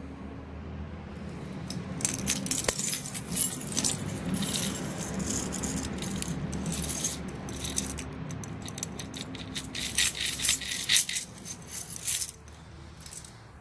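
A bunch of keys jangling and clinking in a hand, in quick irregular rattles that start about two seconds in and stop about a second before the end.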